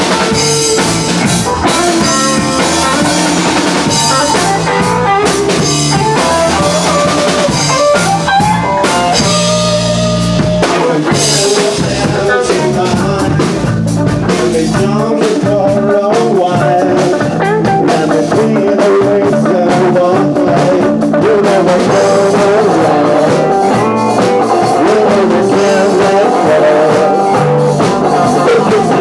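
Live rock band playing: two electric guitars, bass and a drum kit keeping a steady beat, with a male singer's voice over them.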